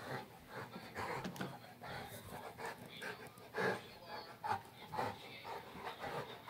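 A Saint Bernard panting in quick, uneven breaths.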